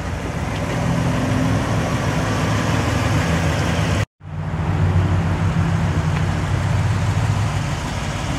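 A Lexus IS-F's 5-liter V8 idling steadily, a low even hum. The sound drops out for a moment about four seconds in.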